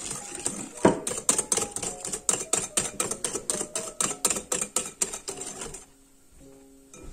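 Wire balloon whisk beating egg yolks and sugar in a glass bowl: quick rhythmic clicks of the wires against the glass, about four a second, stopping near the end. Soft background music underneath.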